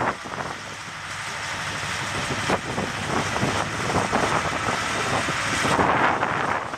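Off-road vehicle engine running, growing louder to a peak near the end, then easing off.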